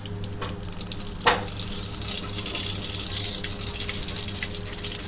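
Cumin and mustard seeds sizzling and crackling in hot oil in an aluminium pot, with many small pops as the mustard seeds splutter: a tempering (tadka) at the moment the seeds hit the oil. A steel ladle knocks against the pot once, sharply, about a second in, and the sizzle grows louder after it.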